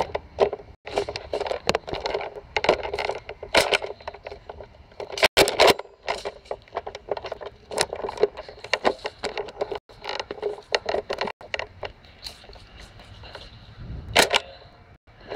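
Handling noise from a camera mounted on a Nerf Rampage blaster as it is carried and swung about: irregular rustling, scraping and plastic clicking, with a few sharper clacks about five seconds in and again near the end.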